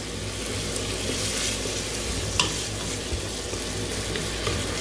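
Ham and bacon sizzling as they fry in a pan: a steady hiss over a low hum, with a single sharp click about halfway through.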